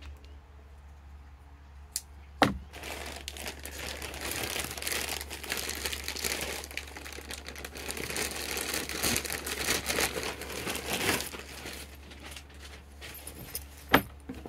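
Plastic packaging crinkling and rustling as a canvas shoulder bag is handled and unwrapped, with two sharp clicks about two seconds in and another near the end.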